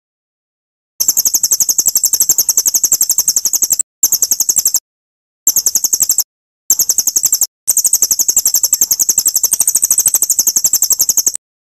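Recorded songbird trill from a masteran song-tutoring track: a very high, rapid string of sharp chips, about ten a second. It plays in five bouts cut by abrupt silent gaps, starting about a second in and stopping shortly before the end.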